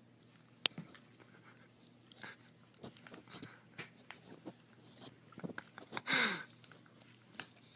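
A bag crinkling and rustling as a cat with its head stuck inside it moves about on bedding: scattered faint rustles and ticks, with one longer, louder burst a little after six seconds.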